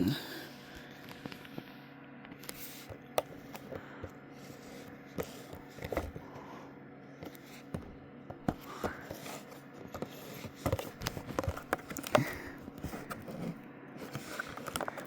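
Toys and packaging being handled: scattered small clicks, taps and scrapes, with a sharper knock at the start and another about twelve seconds in, over a steady low hum.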